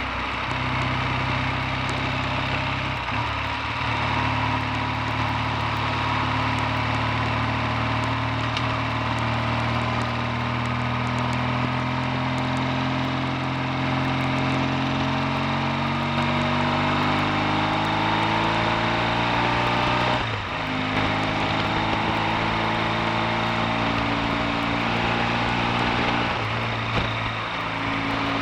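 Triumph T140V's 750 cc parallel-twin engine under way on the road, its note climbing steadily as the bike accelerates. The pitch drops sharply at gear changes three times: near the start, about two-thirds through and near the end.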